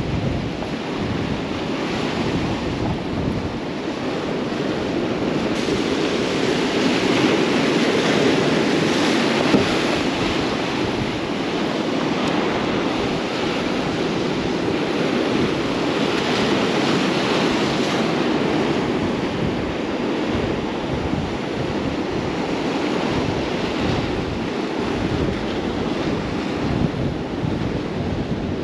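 Ocean surf breaking and washing against a rock jetty, a continuous rushing wash that swells louder twice as bigger waves come in, with wind buffeting the microphone.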